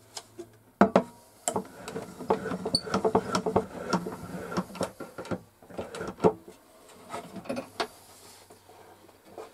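Irregular clicking and knocking from a wind-up gramophone's clockwork spring motor and hinged wooden motorboard being handled, busiest in the first six seconds or so, then a few scattered knocks.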